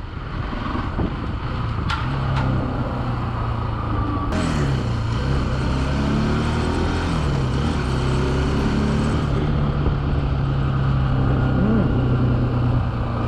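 Bajaj Pulsar 200NS single-cylinder engine running while the bike is ridden, with road and wind noise. The engine note shifts in pitch a few times around the middle, then holds steady.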